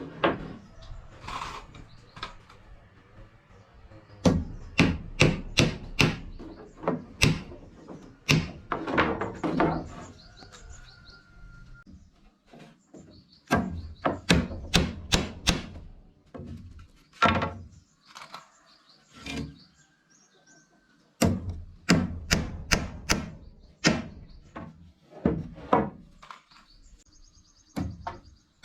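Runs of sharp strikes on wood, several a second, coming in three main bursts with quiet pauses between, typical of hand tools such as a hammer or axe working timber.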